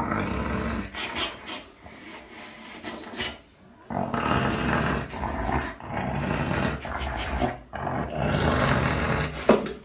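A dog making a run of long, harsh, throaty vocalisations, about five in a row, each lasting one to two seconds with short pauses between.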